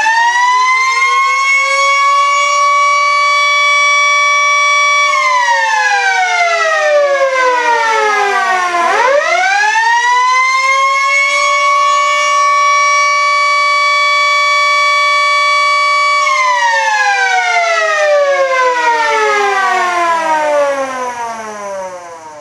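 Electromechanical outdoor warning siren sounding one tone. It has just spun up and rises to a steady wail, winds down about five seconds in, spins back up about nine seconds in, holds again, then winds down from about sixteen seconds on as it coasts to a stop.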